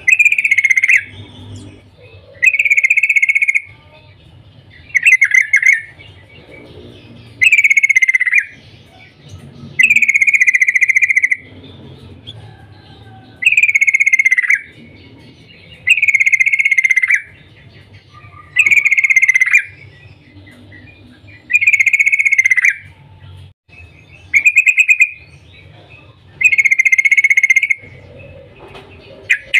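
Yellow-vented bulbul singing loudly at close range, repeating a short chattering phrase about a second long every two to three seconds, eleven times.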